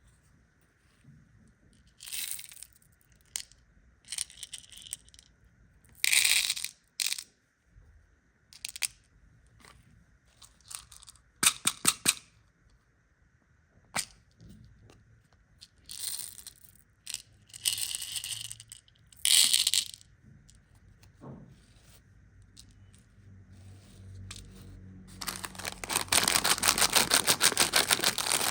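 Plastic candy packaging being handled and opened: separate bursts of crinkling and rustling with sharp clicks, turning into continuous crinkling near the end.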